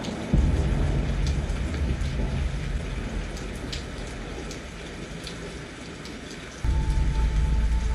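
Rain falling, with scattered sharp drop ticks and a low rumble that comes in suddenly just after the start, dies down through the middle, and cuts back in loudly near the end.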